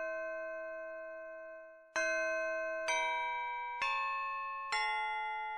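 Background music of bell-like struck chords, each ringing and fading. One chord rings on at the start, and after a short dip four more chords follow about a second apart.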